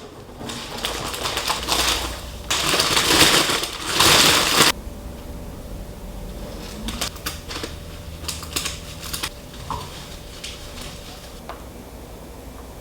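Wrapping being crumpled and rustled, loudest for about two seconds, then followed by scattered light crinkles and clicks.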